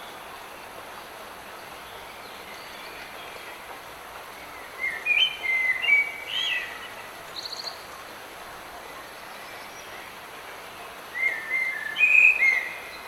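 Light rain falling with a steady soft hiss, while a songbird sings two short phrases of quick warbled notes, one about five seconds in and another near the end.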